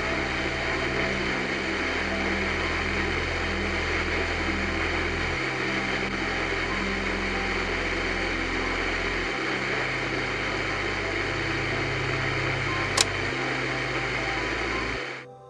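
Radio static hissing from a three-band FM/AM/SW radio as its tuning knob is turned between stations, with a low hum under it that shifts in steps. A sharp click comes near the end, and the static cuts off suddenly about two seconds later.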